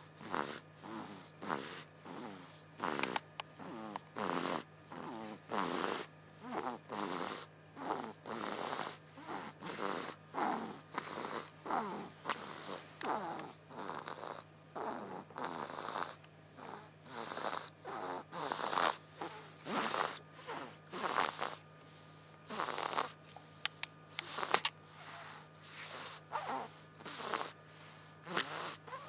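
Baby snoring in sleep: a quick, regular series of short snores, more than one a second.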